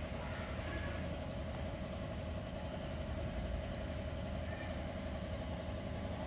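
Steady low mechanical rumble with a constant hum, from a machine or engine running without change.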